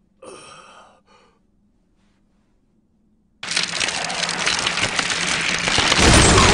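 Anime sound effect of wood cracking and crackling as a tree grows out of a man's arm; it starts loud and dense about halfway in, after a short breathy gasp and a moment of near silence, and a deep rumble joins near the end.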